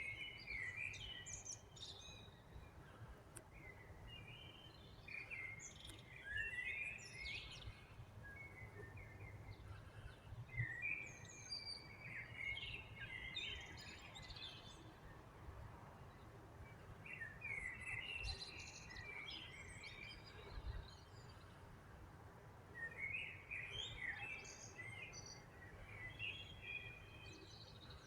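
Songbirds singing in short phrases of quick chirps, one every few seconds, over a steady low background rumble.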